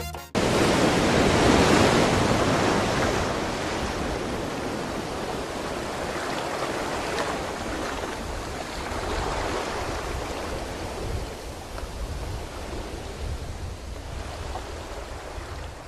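Ocean surf: the rush of a breaking wave that starts suddenly, is loudest in the first couple of seconds, and then slowly dies away as the water washes on.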